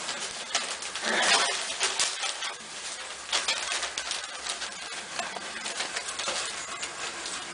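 Newspaper bedding rustling and crinkling as an American Staffordshire terrier and her puppies move about and she licks them, with soft cooing calls mixed in.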